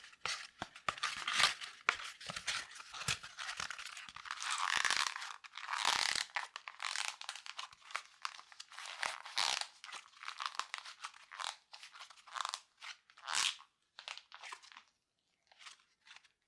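Cardboard kitchen-roll tube handled close to the microphone: a dense run of crackly, crunching rustles and clicks from scratching and squeezing the cardboard. The sounds thin out into a few separate crackles near the end.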